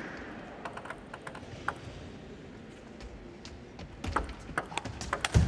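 Light clicks of a table tennis ball on table and bat, sparse at first, then from about four seconds in a quicker run of sharper hits with low thuds of footwork on the court floor.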